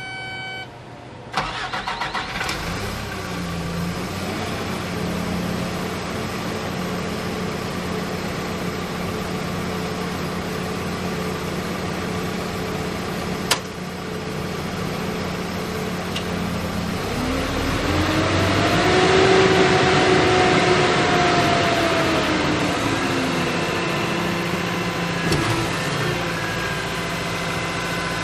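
Cat excavator's diesel engine cranking and catching about a second in, after a short electronic tone, then idling steadily. Past the middle the engine speeds up, its pitch and loudness rising, then drops back to idle.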